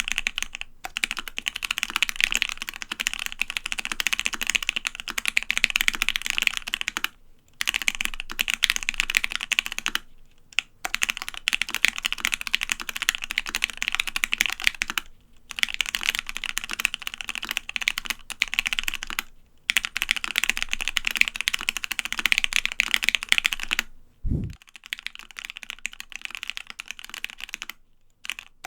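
Fast typing on a custom Savage65 keyboard with lubed Gateron Ink Black linear switches, PBT keycaps and an FR4 plate: dense runs of keystroke clacks broken by short pauses every few seconds. A single low thump sounds near the end.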